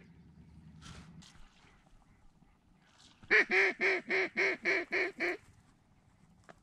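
A mallard duck call blown in a quick run of about nine quacks, roughly four a second, the first the loudest and the rest tapering off: a descending hail call sent to circling mallards.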